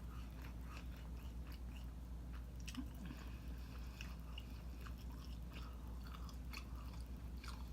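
Close-up chewing of saucy fried chicken pieces: soft wet smacks and small clicks of the mouth, with a steady low hum underneath.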